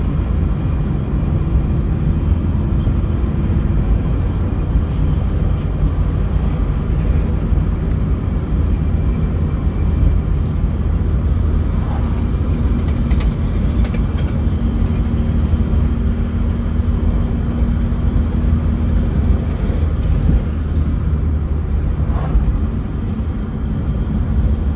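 Steady low rumble of a car travelling at highway speed, heard from inside the cabin.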